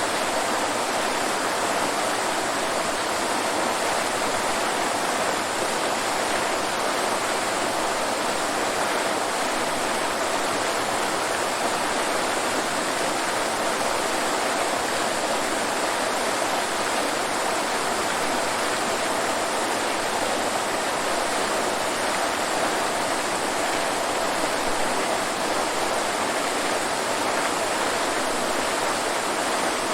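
Waterfall rushing, a steady, unbroken hiss of falling water.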